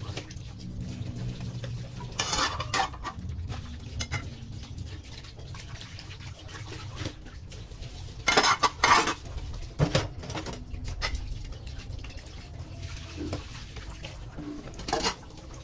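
Hand dishwashing under a running tap at a stainless steel sink: water pours steadily while glassware and plastic containers knock and clatter against each other and the sink several times, loudest about eight to nine seconds in.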